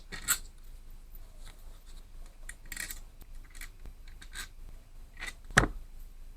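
Faint scrapes, rustles and small clicks of tools and engine parts being handled, with one sharper knock about five and a half seconds in.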